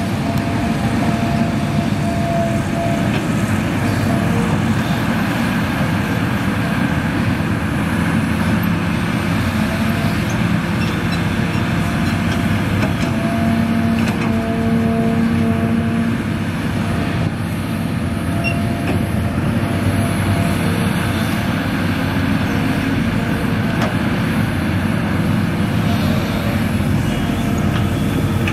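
Heavy machinery diesel engines running steadily, a continuous engine noise with a few held tones.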